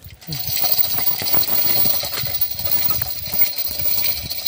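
Manual chain block on a tripod rattling with rapid, steady metallic clicks as its chain pays out, lowering a submersible pump into a borewell.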